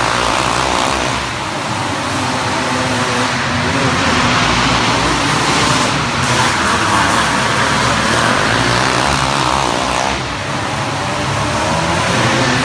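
Race car engines running on a track, a loud, steady engine din that dips briefly twice.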